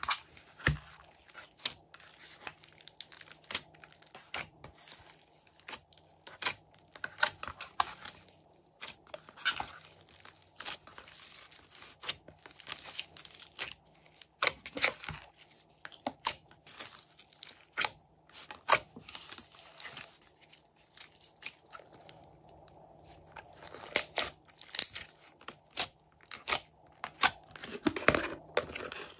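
Glossy slime mixed with clay, foam beads and glitter being pressed and kneaded by hand, giving an irregular run of wet crackles and pops.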